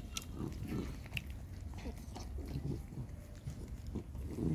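Mother dog eating from a bowl, with wet chewing and slurping, and short soft grunts from her nursing puppies.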